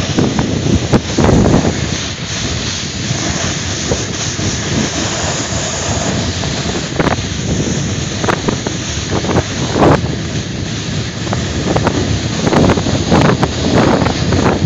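Strong wind buffeting the microphone in irregular gusts, from riding fast on a snowkite.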